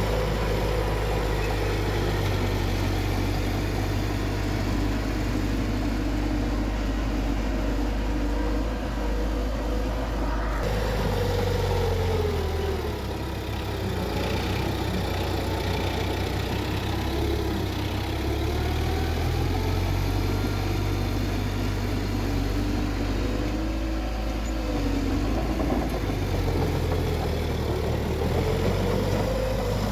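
Bulldozer's diesel engine running steadily, its pitch rising and falling several times as it works.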